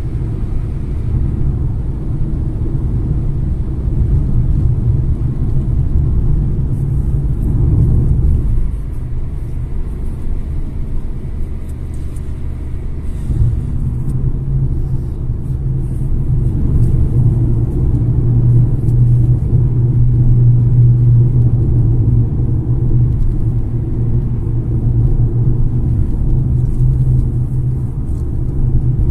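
Car driving on an open highway: a steady low rumble of engine and tyres, with a low engine drone that grows stronger about halfway through.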